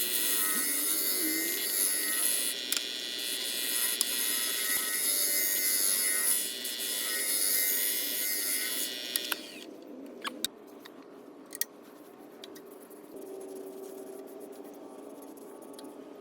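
A tool held against wood spinning on a wood lathe, a steady hissing scrape. About nine seconds in the tool comes off the wood, leaving the quieter hum of the lathe and a few light clicks.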